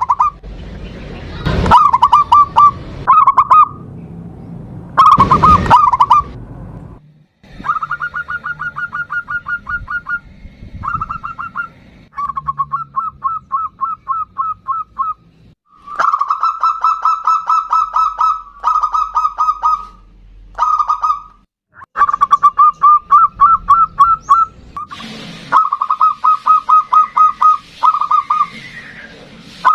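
Zebra dove (perkutut) singing: long runs of rapid, staccato cooing notes, about seven a second on one steady pitch, in repeated phrases with short breaks. A few louder, rougher bursts come in the first six seconds.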